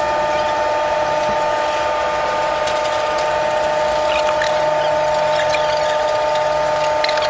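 Steady mechanical hum holding two constant tones over a noisy hiss, unchanging throughout.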